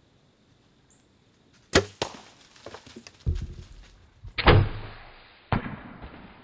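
Mathews VXR compound bow shot: one sharp crack as the string is released, then, a few seconds later, loud thumps and rustling of the hit whitetail buck crashing off through dry leaves.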